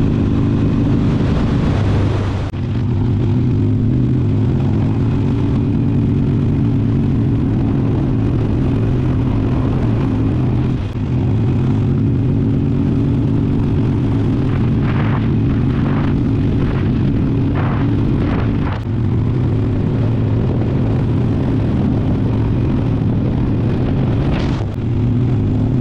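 Harley-Davidson V-twin motorcycle engine running steadily at road speed, with wind rushing past. The note dips briefly about four times.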